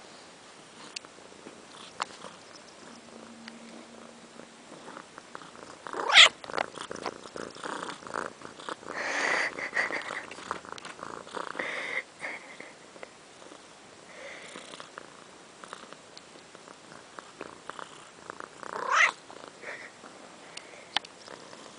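A kitten purring, with small clicks and rustles. Two brief louder sounds stand out, one about six seconds in and another a few seconds before the end.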